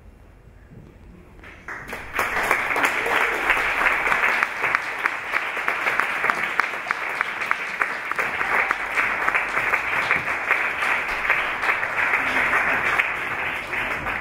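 Audience applauding, starting about two seconds in and dying away near the end.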